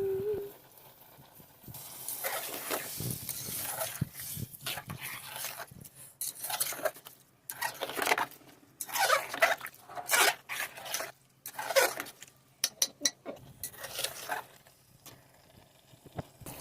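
Spoon stirring and scraping food in a cooking pot, in irregular strokes, with a quick run of clinks against the pot about three-quarters of the way through.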